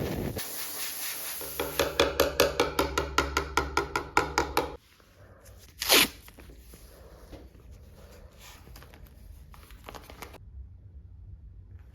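A rhythmic pulsing about six times a second that cuts off suddenly, then a single sharp rip of tape pulled off the roll, followed by light crackling as the tape is unrolled and pressed down around the repair.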